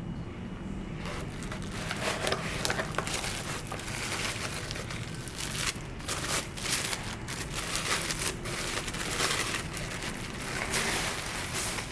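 Packaging crinkling and rustling with irregular scrapes and clicks as a compact amplifier is unpacked from its box.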